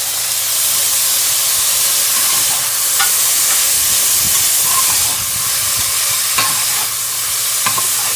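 Tofu, fish balls and vegetables sizzling in hot oil while being stirred in a pot: a steady frying hiss with a few sharp clicks.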